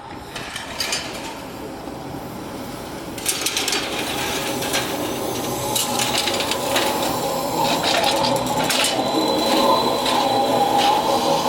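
SkyTrain train approaching on the guideway, growing steadily louder, with rattling clicks from about three seconds in and a thin high whine joining near the end.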